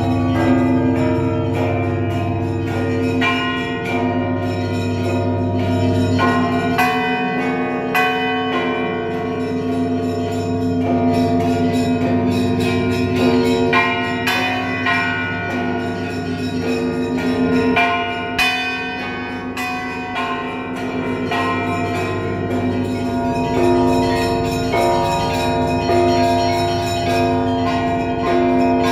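Orthodox church bells ringing: many bells struck in quick, irregular succession over the steady hum of a large bell, their tones overlapping.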